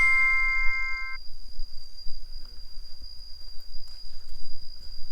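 A bright chime with several ringing tones sounds at the start and cuts off abruptly about a second in. A steady, thin, high insect drone carries on throughout.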